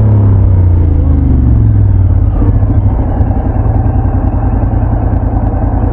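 Motorcycle engine running, its pitch falling over the first couple of seconds and then holding steady with a low rumble.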